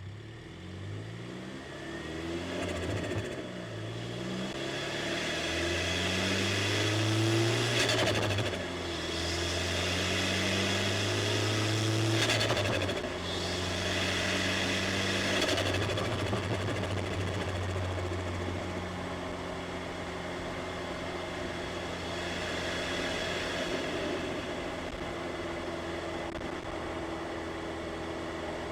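Turbocharged 300+ hp Mini Cooper engine heard from inside the cabin, pulling hard through the gears of its manual gearbox: the engine pitch climbs, then drops at each upshift. Short bursts of noisy turbo flutter come at the shifts about 8, 12 and 15 seconds in. The engine then settles into a steady cruise.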